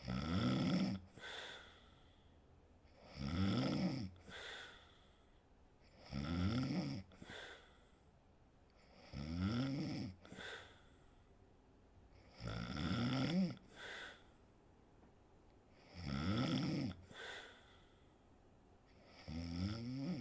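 A sleeping woman snoring: seven snores about every three seconds, each a pitched snore about a second long followed by a shorter, softer second sound.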